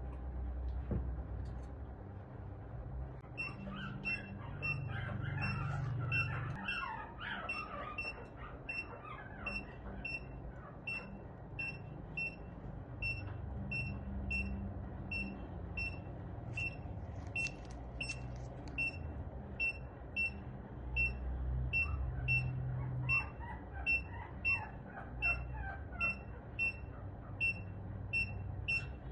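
A veterinary patient monitor's steady pulse beep, a single high tone repeating about one and a half times a second, starting a few seconds in. Over it, an animal gives two spells of falling whining cries, with a low hum throughout.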